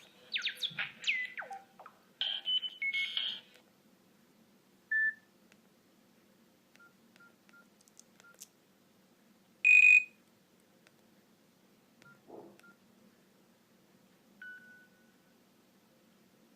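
Nokia N96 mobile phone playing short electronic tones one after another: a quick run of rising and falling chirps, then single beeps and small blips with quiet gaps between them, the loudest a high half-second beep about ten seconds in.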